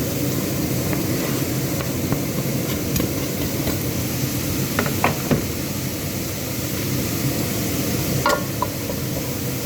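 Chopped onion and garlic sizzling in hot oil in a pan, with a few sharp clinks and knocks of a utensil against the pan as it is stirred.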